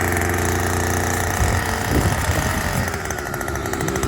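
Small engine fitted to a converted hand-pulled chain-pot seedling transplanter, running steadily, with a slight waver in its note around the middle.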